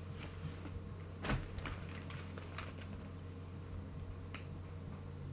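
A sharp knock about a second in, then a quick scatter of light clicks and taps, and one more click near the end, over a steady low hum.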